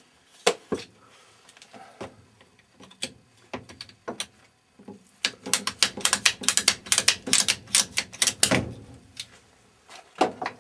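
Hands handling black plastic loop pipes and fittings: a few scattered knocks, then a few seconds of rapid, irregular clicking and tapping, ending in one louder knock.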